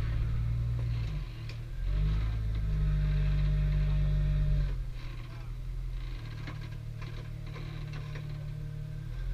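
Jeep Cherokee XJ engine revving in surges as it crawls up a rock ledge, easing to a lower steady run about halfway through. Faint voices of onlookers are heard.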